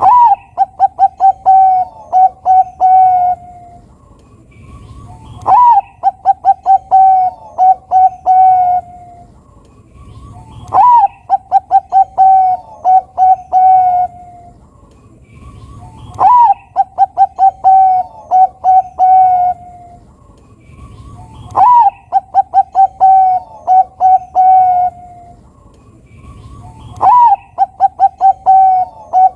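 Zebra dove (perkutut, Bangkok line) singing its cooing song six times, about once every five and a half seconds. Each phrase opens with a rising-then-falling note, then a quick run of short coos, and ends on a longer drawn-out coo.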